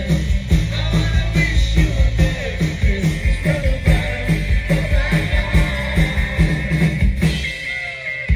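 Live rock band playing with a steady drum-kit beat under electric and acoustic guitars and bass. The drums and low end drop away for about a second near the end.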